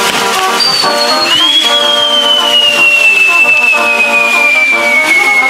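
Regional band music with held chords, and over it a long thin whistle that starts about a second in and slides slowly down in pitch, from a whistling firework.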